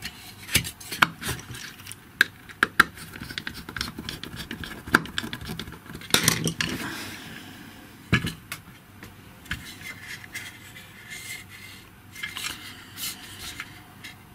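The plastic arm housing of a GHD hair straightener being handled: scattered sharp clicks and knocks of hard plastic, with a longer scrape about six seconds in.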